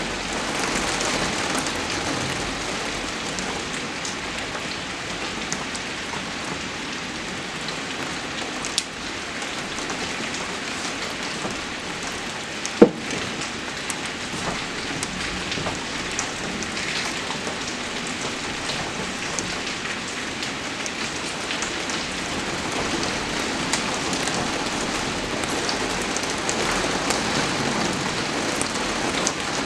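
Steady rain falling, an even noise with scattered small drop ticks. A single sharp knock about 13 seconds in is the loudest sound, with a smaller click around 9 seconds.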